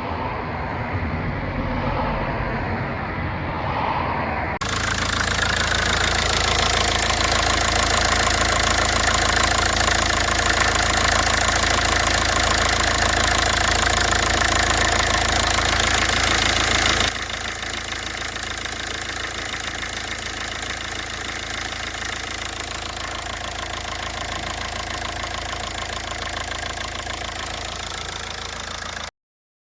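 VW Polo 9N engine running at idle after a new fuel temperature sensor has been fitted. The steady running starts suddenly a few seconds in, drops to a quieter level about two-thirds of the way through, and cuts off abruptly near the end.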